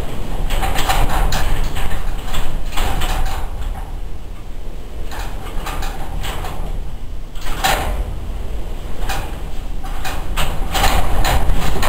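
Heavy wind buffeting the microphone, a constant low rumble with irregular gusting bursts every second or two, over a milling machine cutting.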